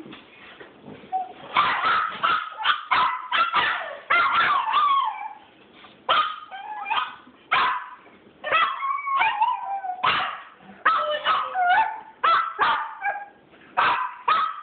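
Several dogs barking and yipping together in a chorus of short, sharp calls that come in quick runs with brief gaps; some calls slide up and down in pitch like a howl or whine.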